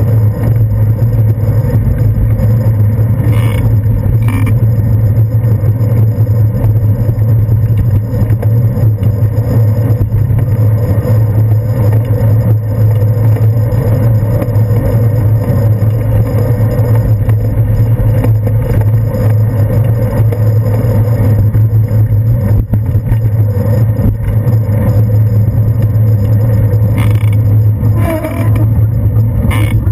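Steady loud wind and road rumble picked up by a handlebar-mounted GoPro Hero 2 on a moving bicycle, with a few sharp knocks or rattles, two about three to four seconds in and two more near the end.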